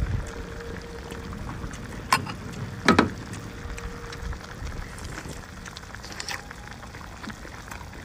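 Chewing on a crunchy bite of raw sea cucumber: a few short, sharp crunching clicks, loudest about three seconds in, over a steady low rumble.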